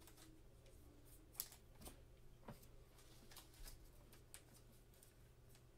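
Faint, scattered light ticks and rustles of basketball trading cards being flipped through and handled in gloved hands, with a clear plastic bag being handled, over a low steady room hum.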